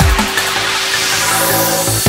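Electronic background music with a heavy drum-and-bass style beat. The drums drop out briefly while a rising noise sweep builds, and the beat comes back in at the end.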